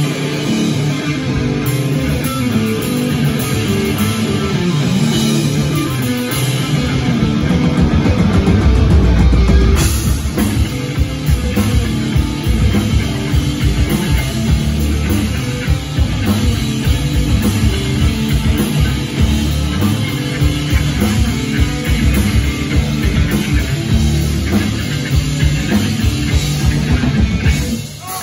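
A live rock band playing: electric guitar riffing over drum kit and bass guitar, with a brief break near the end.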